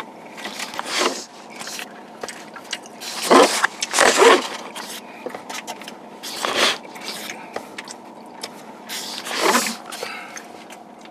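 Hands grabbing and handling the camera, giving several short scraping, rubbing bursts close to the microphone.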